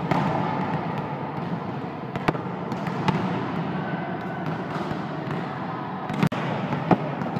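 Volleyballs being struck and bouncing on a hard gym court: several sharp smacks a second or more apart, over the steady din of a large indoor sports hall.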